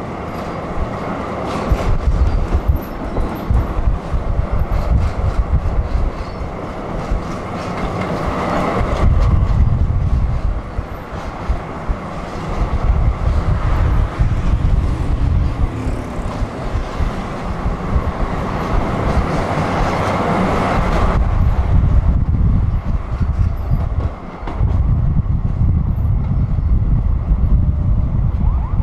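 Tram running along the track: its wheels rumble on the rails, with occasional clicks, and the noise swells and eases several times, dipping briefly near the end.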